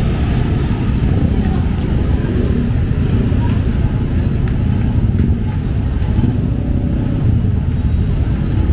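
Busy market street ambience: a steady low rumble of road traffic with crowd voices in the background.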